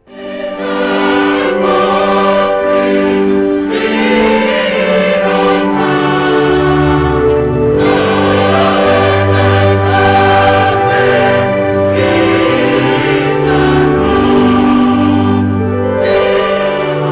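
A choir singing with a string orchestra of violins and cellos, in long held notes over a low bass line. It starts suddenly and plays on without a break.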